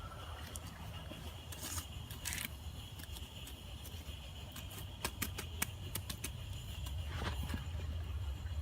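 Wood fire crackling: scattered small pops and snaps at irregular intervals over a low steady hum.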